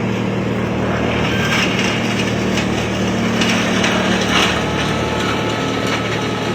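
A small engine running steadily at a constant speed, with a few brief crackling noises over it.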